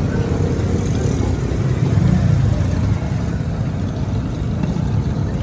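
Steady low engine rumble, swelling briefly about two seconds in.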